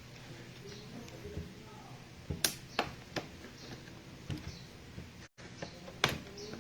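Hands working on a laptop, making a handful of sharp clicks and taps a fraction of a second to a second apart, with a brief cut-out of all sound near the end.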